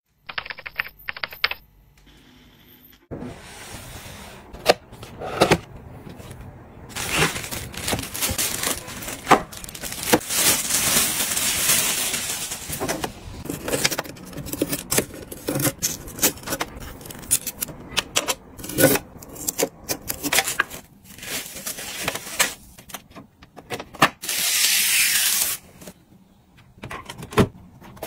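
Close handling of a new turntable and its packaging: rustling of plastic and foam wrapping, with frequent clicks and taps as parts are handled. Two longer stretches of rustling come about ten seconds in and near the end.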